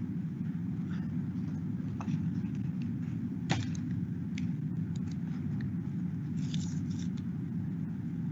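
Steady low background hum from an open video-call microphone, with a few faint clicks; the sharpest comes about three and a half seconds in.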